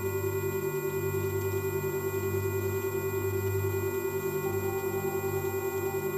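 Layered electronic sine tones for 'cough' frequency listening: several steady pitches held at once, from low to very high, the loudest one pulsing rapidly. A faint extra tone joins about four and a half seconds in.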